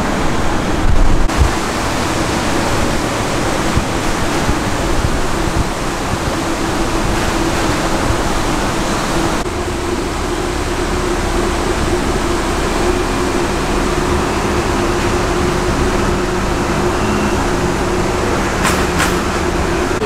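Steady rushing city street ambience with a faint low hum under it, a few low thumps in the first second and two short clicks near the end.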